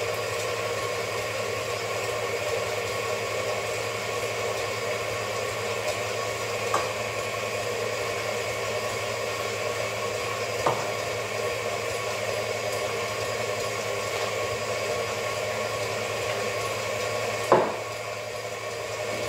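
Electric stand mixer running steadily, its whisk beating eggs and sugar until pale and fluffy. A few knocks on the counter come through, the loudest near the end.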